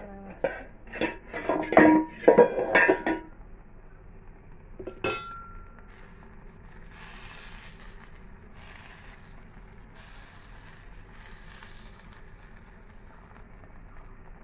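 Metal lid and utensil clanking on a stovetop griddle pan: a quick run of sharp, ringing clanks in the first three seconds as the aluminium lid is handled and lifted, and one more ringing clink about five seconds in. After that only a faint steady hiss remains.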